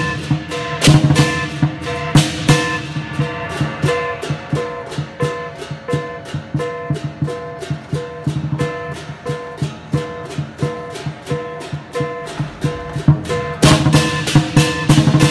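Music with a plucked-string melody over a fast, steady pulse of light percussion, with heavier drum hits near the start and again near the end.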